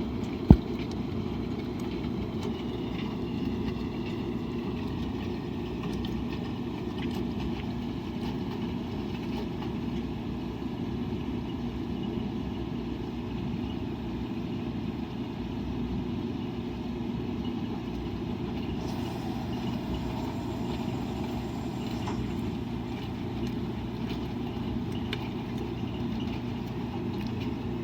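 Washing machine running with a steady low mechanical hum, and one sharp click about half a second in.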